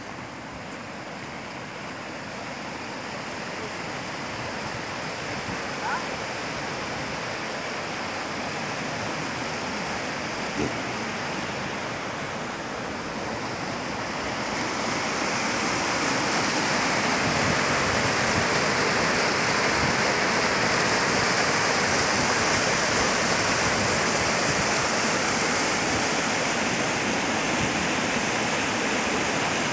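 Mountain stream rushing over rocks and boulders, a steady rush that grows louder and is loudest from about halfway through.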